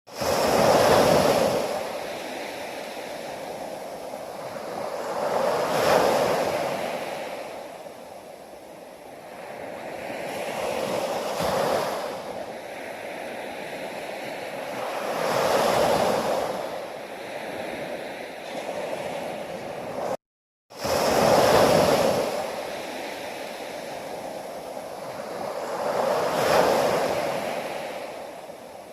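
Ocean waves breaking on a shore, with the surf swelling and easing about every five seconds. The sound cuts out for a moment about twenty seconds in.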